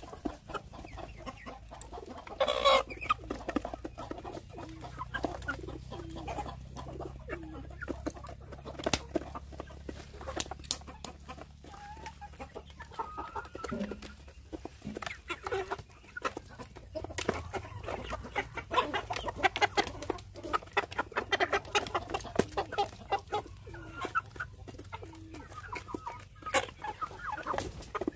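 A flock of hens clucking softly as they feed, with a louder call about three seconds in, and many sharp clicks of beaks pecking grain from a plastic feeder tray.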